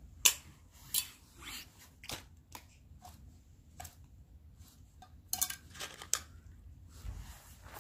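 Kittens eating from plastic bowls: irregular sharp clicks and crunches of chewing and of food against the bowls, the loudest about a third of a second in and a quick cluster a little past halfway.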